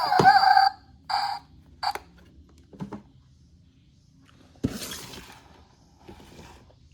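A synthesized electronic tune, like a toy's sound chip, plays and cuts off within the first second. A short snatch of it repeats about a second in. Then come faint handling sounds, with a louder rustling scrape about five seconds in.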